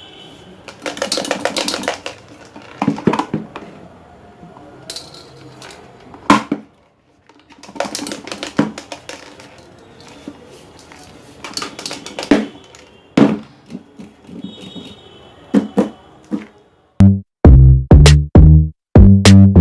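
Scattered irregular clatters and knocks, then electronic music with a heavy drum-machine beat starting about 17 seconds in, which becomes the loudest sound.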